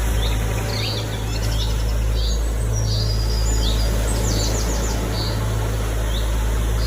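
Small birds chirping in short, scattered calls, with a quick run of chirps about four and a half seconds in, over a steady low rumble.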